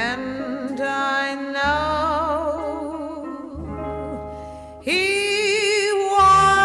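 Music: a woman's voice holding long notes with wide vibrato over guitar and low accompaniment, a new, louder note starting about five seconds in.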